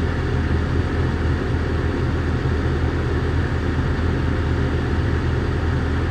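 Heavy earthmoving machine's diesel engine running steadily with a deep, even drone.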